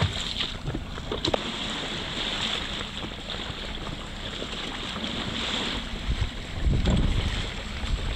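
Wind buffeting the microphone over the slosh and splash of choppy sea water around a small boat, with a couple of light knocks in the first second or so and heavier gusts about six to seven seconds in.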